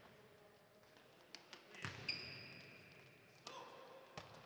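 A futsal ball being kicked and bouncing on a sports hall floor: a few sharp thuds, the loudest about two seconds in, followed by a short high-pitched squeak.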